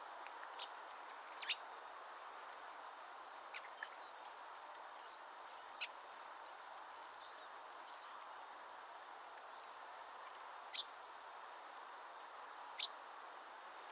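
Birds giving single short, sharp call notes every few seconds, two or three close together near the start and a few more spaced out later, over a steady background hiss.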